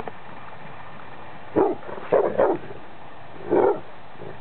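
Dog barking at horses: about four short, loud barks, two of them close together in the middle.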